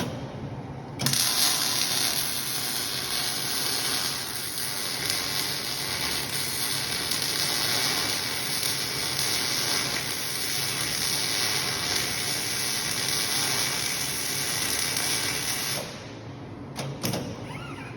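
MIG welder arc crackling and hissing steadily as a weld is laid. It strikes about a second in and cuts off suddenly near the end.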